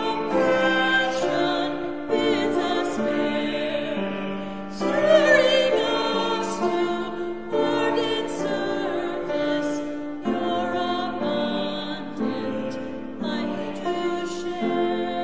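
A woman's voice leads a few other voices singing a slow hymn in sustained notes that change about once a second, with the last phrase held near the end.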